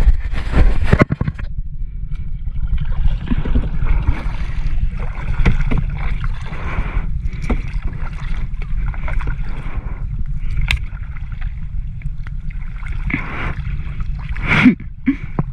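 Kayak paddle strokes swishing and splashing in the river water, over a steady low rumble of wind on the microphone. There are a few knocks in the first second and a sharp knock near the end.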